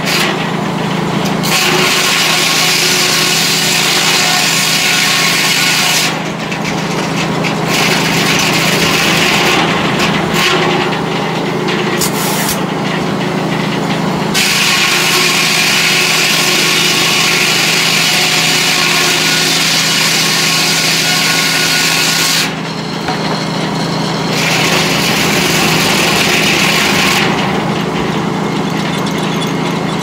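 Large circular sawmill head saw cutting through a log on the carriage: a harsh, loud sawing noise that comes in several long stretches with short breaks between, over the steady hum of the saw's drive.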